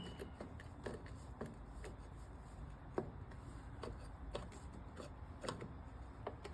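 Scattered light clicks and taps from the parts of a lawnmower transmission being handled and worked while it is put back together, with a slightly sharper knock about 3 seconds in and again about 5.5 seconds in.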